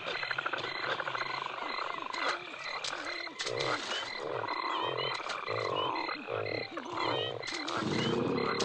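Frogs croaking in a run of low, rounded calls over a steady, evenly pulsing high chirp, as in a night-time swamp soundscape.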